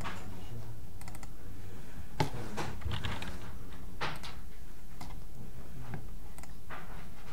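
Irregular computer keyboard keystrokes and mouse clicks over a steady low hum.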